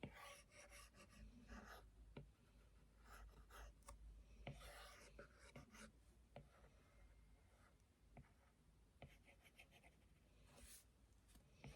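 Faint scratching of a drawing tool moving in short strokes over a surface, in several spells, with a few light taps between them.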